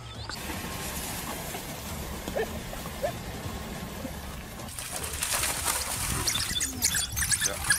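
A steady outdoor hiss with a few faint chirps, then, about five seconds in, louder splashing and thrashing of animals struggling in shallow water.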